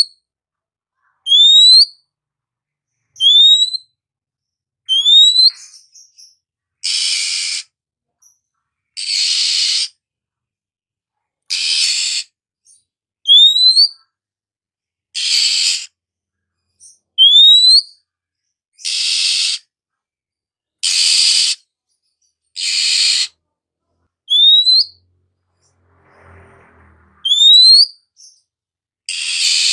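Oriental magpie-robin (kacer) calling: short clear whistles that sweep upward, alternating with harsh rasping calls. It gives one note every one to two seconds, with silent gaps between.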